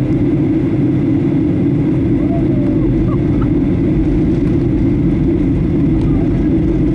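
Steady cabin noise inside a Boeing 737-800 during its descent: an even, low rumble of the CFM56-7B engines and rushing airflow.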